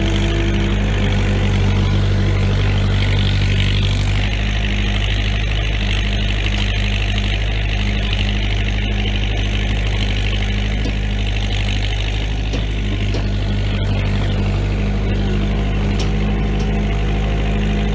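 Bobcat 943 skid steer's four-cylinder Perkins diesel running steadily at working throttle, easing slightly about four seconds in.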